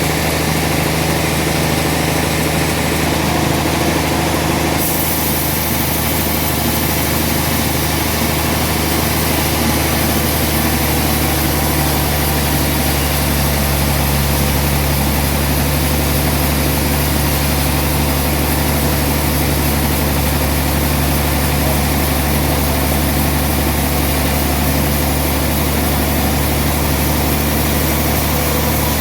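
Sawmill running steadily: a steady engine hum under a dense saw hiss, the hiss growing fuller about five seconds in.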